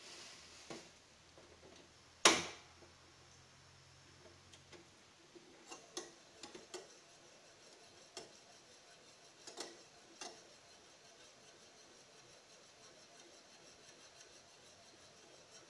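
One sharp knock about two seconds in, then a scattering of light clicks and taps from a utensil against a small saucepan as a milk and cornstarch cream filling is stirred on the stove.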